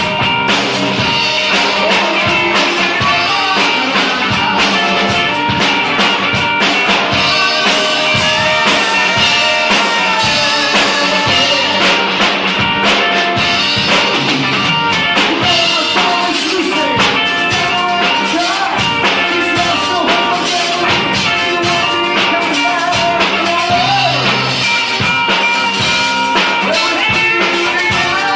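Live three-piece band playing a jam: bowed fiddle, guitar and drum kit, loud and steady.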